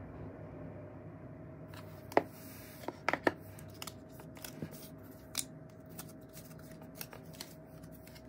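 Light clicks and taps of a smartphone and its packaging being handled on a wooden desk, starting about two seconds in, with a few sharper knocks between two and three and a half seconds in. A steady faint hum runs underneath.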